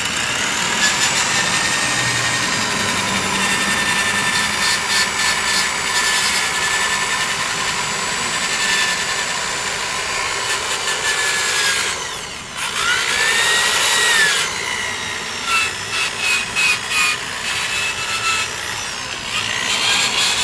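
Cordless drill spinning a 400-grit sanding disc against a clear-coated alloy car wheel: a steady motor whine with abrasive rubbing as the clear coat and tarnish are sanded off, the drill running below full speed. About twelve seconds in the motor drops off briefly and winds back up, then runs in several short bursts before running steadily again near the end.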